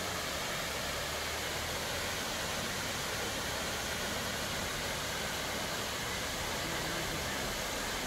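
Water pouring down a stepped rock waterfall: a steady, even rush.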